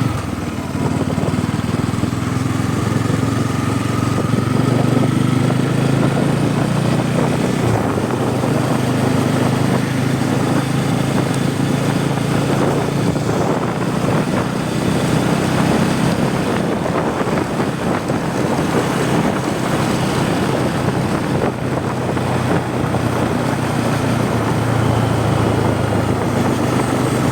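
Bajaj Pulsar N250's single-cylinder engine and exhaust running steadily while the motorcycle is ridden at an even pace.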